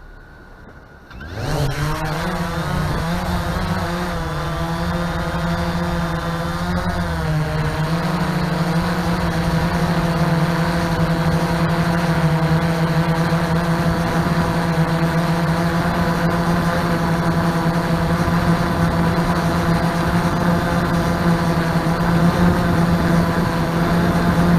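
A multirotor drone's motors and propellers spinning up about a second in, then running with a steady buzzing whine whose pitch wavers briefly before settling.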